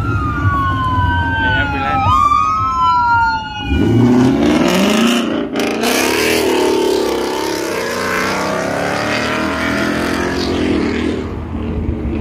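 A siren wailing in long rising and falling sweeps, two tones overlapping, for the first few seconds. Then a car engine revs up, with dense engine and exhaust noise.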